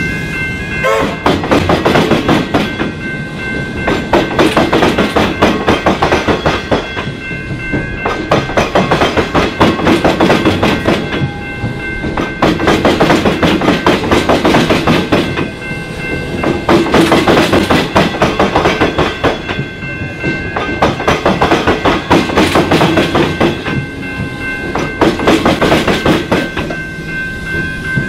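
Metro Trains Melbourne suburban electric train passing over a level crossing where it crosses tram tracks. Its wheels clatter loudly in bursts every few seconds as each set of bogies runs over the tram-track diamond crossing. The crossing's warning bells ring steadily, clearest at the start and near the end.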